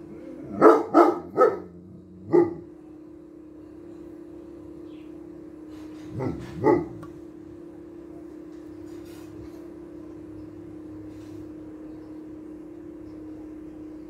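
Boerboel dog barking: four barks in the first two and a half seconds, then two more about six seconds in. A steady hum runs underneath.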